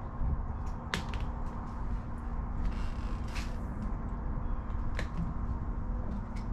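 Steady low outdoor rumble with a faint constant hum, broken by a few sharp clicks about a second in, about five seconds in and near the end, and a short hiss about three seconds in.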